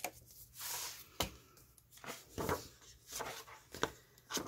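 Hardcover picture book being opened and its first pages handled: several short knocks and a rustle of paper as the cover is lifted and laid open.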